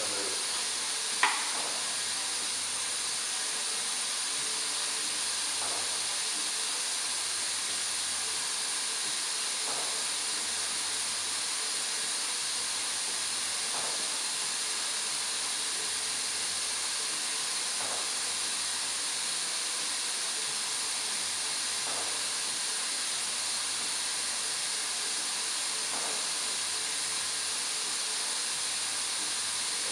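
Steady hiss from a beer bottle-filling machine as two bottles fill with beer. A sharp click comes about a second in, and faint ticks follow roughly every four seconds.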